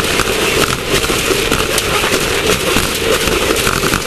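Class 1600 off-road race car driving: a loud, steady din of engine and rattling, peppered with many small clicks and knocks.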